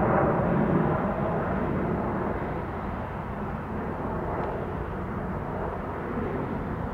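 Distant jet noise from a departing Gulfstream business jet, a steady rushing sound that fades over the first few seconds and then holds low.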